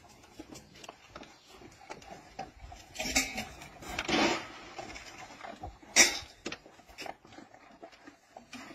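A pack of beagles feeding at a trough: scattered clatter and knocks, with two louder scuffling stretches about three and four seconds in and a single sharp knock about six seconds in.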